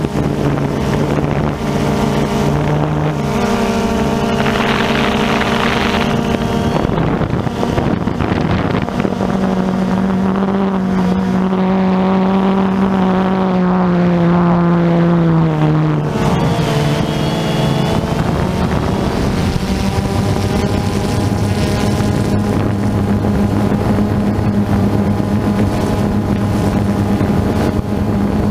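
DJI Phantom 2 quadcopter's motors and propellers humming in flight, with wind on the microphone. The pitch of the hum shifts in steps, sinks slowly for several seconds around the middle, then holds steady.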